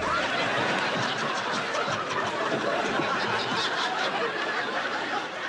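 Sitcom studio audience laughing, a steady swell of many people's laughter held through the pause.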